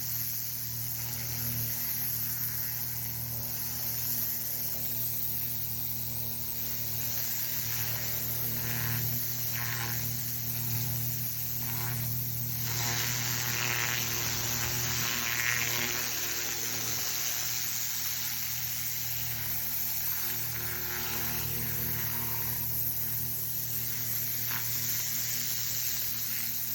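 Pressure washer running: a steady drone with the hiss of the water spray, changing little throughout.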